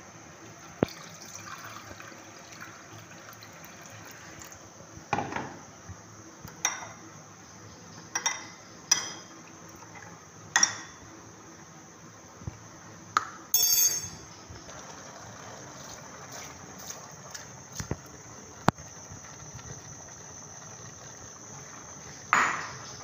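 Metal spoon clinking sharply against a glass bowl as seasoning is stirred into water, with water poured into the bowl in the first seconds. Near the end comes a brief, louder rushing sound.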